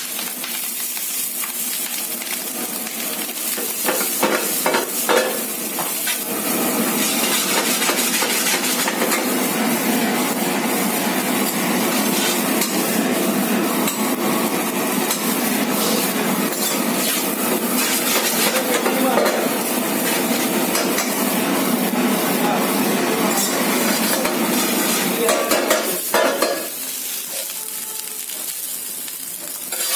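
Rice frying and sizzling in a metal pan over a gas flame while it is stirred. There are a few knocks about five seconds in. The sizzle grows louder after several seconds and drops off shortly before the end.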